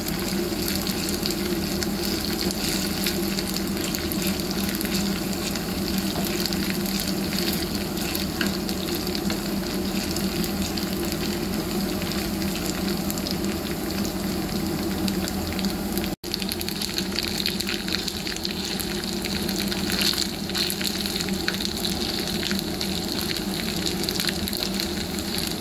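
Sliced onions, green chillies and herbs sizzling steadily in hot oil in a small pan, stirred now and then with a steel spoon. This is the tempering (baghaar) for maash daal, with the onions beginning to change colour. The sound cuts out for an instant about sixteen seconds in.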